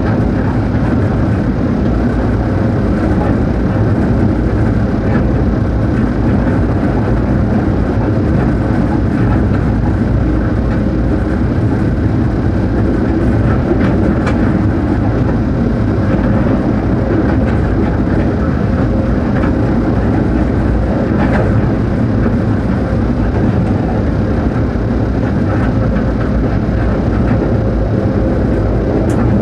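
Steady running noise inside the cab of a ČD class 363 electric locomotive travelling at speed: a dense rumble of wheels on rail and running gear, with faint steady tones through it.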